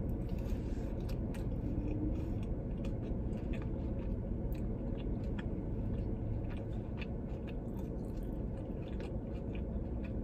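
A person chewing and biting a bone-in chicken wing close to the microphone, with many small irregular wet clicks and smacks.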